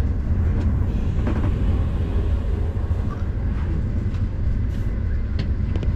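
Steady low rumble of a moving passenger train heard from inside a soft-sleeper carriage, with a few faint clicks and rattles.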